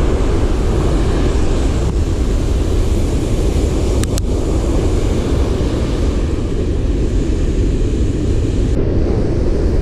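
Steady wind buffeting the camera microphone over the roar of breaking surf on the beach, with a couple of light clicks about two and four seconds in.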